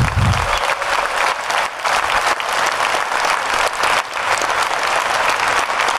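Audience applauding, a dense patter of many hands clapping, with a dull low thump at the very start.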